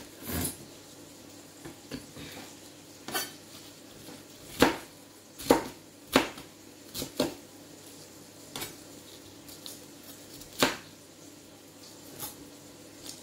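Kitchen knife and dishes knocking against a cutting board and plates: about a dozen sharp, irregular knocks, as tomatoes are cut into cubes and handled.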